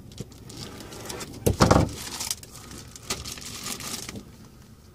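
Plastic model-kit sprues and their plastic packaging being handled, rustling and crackling, with a louder knock about a second and a half in.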